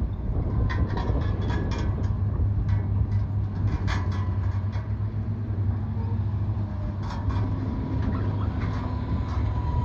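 Heavy diesel log-handling machinery running with a steady low rumble, with repeated metallic clanks and knocks and a faint steady whine coming in over the second half.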